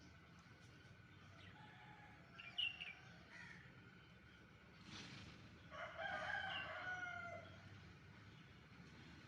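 Bird calls: a short sharp call about two and a half seconds in, then a longer call lasting over a second, from about six seconds in.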